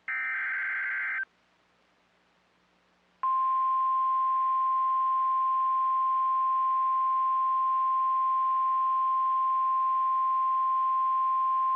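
NOAA Weather Radio Emergency Alert System activation: a short burst of buzzing SAME digital header data lasting about a second, then after a pause of about two seconds the steady 1050 Hz Warning Alarm Tone starts, a single unbroken electronic tone signalling that a warning is about to be read.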